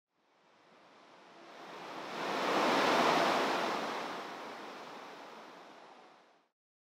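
Rushing background noise of nearby motorway traffic with some wind, fading in, loudest about three seconds in, then fading out.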